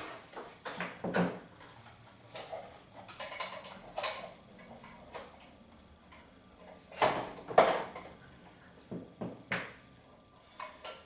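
Irregular knocks, rustles and clatter of packaging and small parts being unpacked and set down on a table. The two loudest knocks come about seven seconds in, half a second apart.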